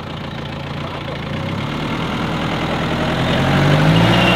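Mahindra Bolero's diesel engine running at low speed as the SUV creeps closer, growing steadily louder. Near the end the engine note rises as the front wheel climbs onto a thick slab of bulletproof glass.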